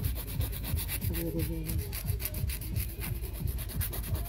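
Hand nail file rubbed back and forth across a natural fingernail in quick, even strokes, readying the nail surface for prep and primer.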